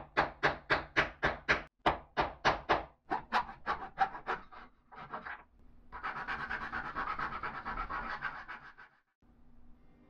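Star-shaped wooden knob being hand-sanded with a round foam sanding pad: rasping strokes about three a second for some five seconds, then about three seconds of faster, continuous scrubbing that stops near the end.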